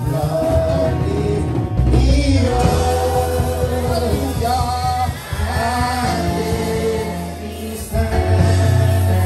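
Gospel song: voices singing over instrumental accompaniment with a steady bass line.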